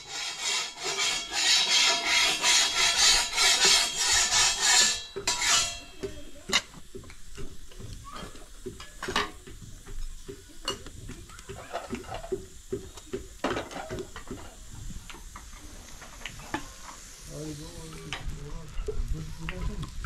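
A spoon beating batter in a metal bowl with quick, rhythmic strokes, stopping about five seconds in. After that come scattered small clicks and crackles.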